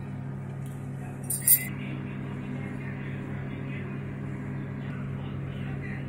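Microwave oven running at full 900-watt power: a steady hum. A brief glassy clink comes about a second and a half in.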